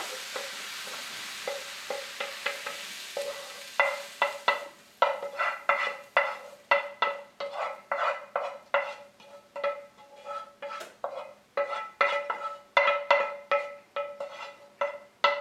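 Wooden spoon scraping and knocking sautéed vegetables off a frying pan into a stainless steel mixing bowl, about two to three knocks a second. Each knock leaves a short metallic ring. A fading sizzle from the hot pan comes first.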